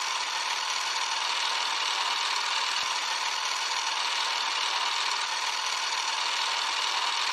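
Steady mechanical whirr of an old film projector running, an even rattling hiss that holds the same level throughout.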